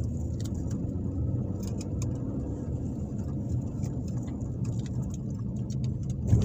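Car running along a street, heard from inside the cabin: a steady, even low rumble of engine and tyre noise, with a few faint clicks.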